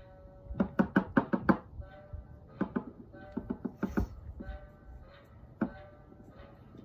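Plastic Playskool Weeble toy hopped and tapped on a wooden floor: a quick run of about seven sharp knocks about a second in, then more in small groups and a last single knock, over quiet orchestral music.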